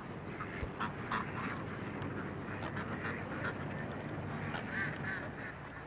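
A flock of mallard ducks quacking, many short scattered calls, over a steady low hum.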